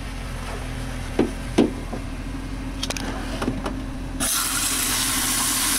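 Water poured into a freshly cleared BMW E46 convertible-top drain, starting suddenly about four seconds in as a steady rushing and gurgling as it runs down the drain: the sign that the drain is now open. Before that there are only a low steady hum and a few light knocks and clicks.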